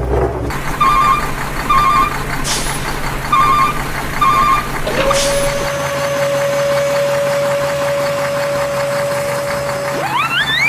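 Heavy vehicle engine sound with four short double beeps like a reversing alarm in the first half. Then a long steady tone that sweeps sharply upward near the end.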